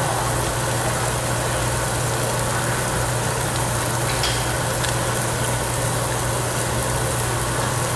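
Meat sizzling on a tabletop barbecue grill over the steady hum of the overhead exhaust hood, with a single light click about halfway through.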